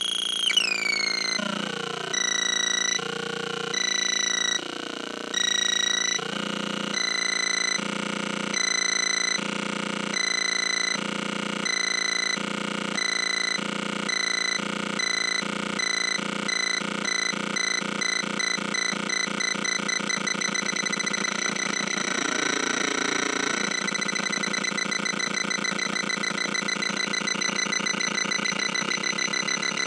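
Homemade Weird Sound Generator circuit played through a tiny mini amp, making electronic bleeps and buzzes: a falling glide at the start, then pulsed tones about once a second. These give way to a faster, continuous warbling pulse, with a noisy wavering stretch about two-thirds of the way through.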